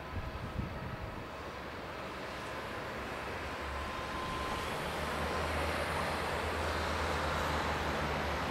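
Airbus A320 jet engines spooling up as the airliner lines up and starts its take-off roll: a steady jet noise that grows gradually louder.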